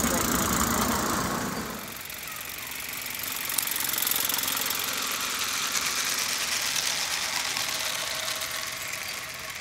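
16 mm scale live-steam garden railway locomotive running at speed, a steady hiss of steam with fast, closely spaced exhaust beats, louder at first, fading briefly and rising again about four seconds in.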